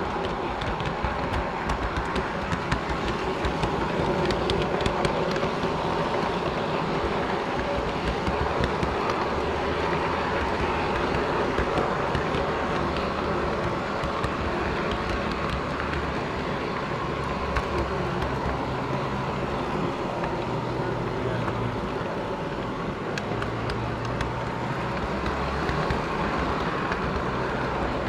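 Garden-scale live steam model locomotive running along its track, heard from on board: a steady mechanical running noise with many small clicks throughout.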